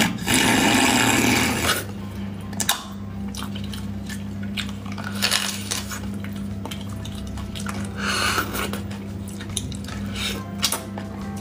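Close-miked eating of sauced lamb marrow bones. The loudest sound is a long noisy suck lasting nearly two seconds at the start, as marrow is drawn out of a bone. It is followed by scattered short smacks, clicks and mouth noises, with another suck about eight seconds in.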